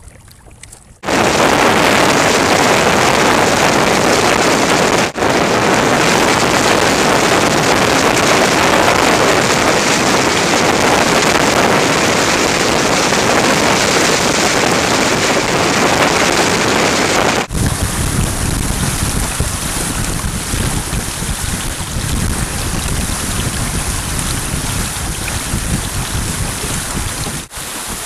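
Wind rushing over the microphone and water rushing past the hull of a small sailing trimaran under way. The sound starts abruptly about a second in and cuts sharply several times between clips, with a heavier, deeper wind buffeting in the later part.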